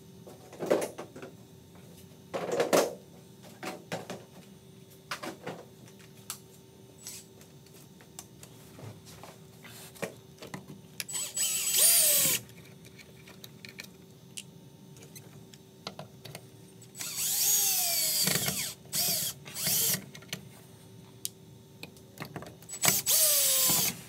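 Cordless drill-driver running in three bursts against the sheet-metal firewall, its motor whine rising and falling as the trigger is worked. The middle burst is the longest and comes in several short runs. A few clattering knocks of handling come first.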